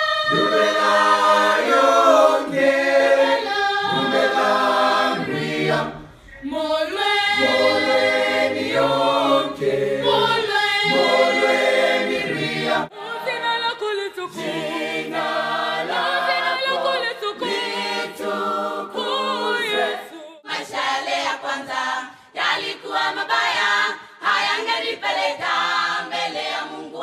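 A Kenyan youth choir singing, heard in several short clips cut one after another, with the sound changing abruptly about 6, 13 and 20 seconds in.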